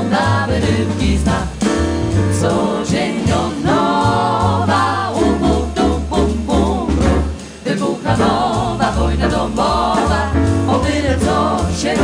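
Mixed male and female vocal group singing in close harmony, accompanied by piano, double bass and drum kit.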